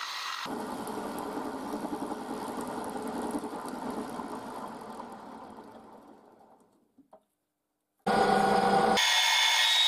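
Milling machine with an end mill cutting a slot in aluminium box section, a steady machining noise that fades away and stops about seven seconds in. After a brief silence a metal lathe starts running, its spinning chuck giving a steady whine with a few high tones.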